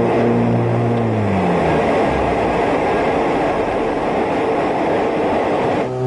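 Aircraft engine heard from the cockpit, its drone falling in pitch and dying away about a second and a half in, as an engine being shut down in flight. A steady rush of airflow noise is left.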